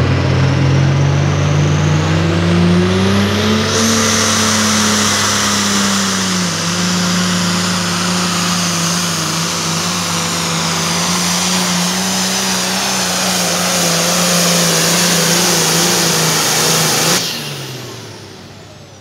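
Hot Farm class pulling tractor's turbocharged diesel engine at full throttle during a pull, its pitch climbing over the first few seconds and then holding steady. About two seconds before the end the engine is cut suddenly and the sound falls away.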